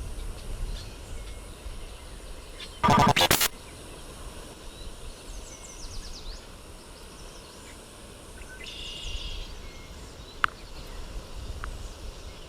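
Outdoor ambience with scattered short bird chirps, broken by one brief loud burst about three seconds in.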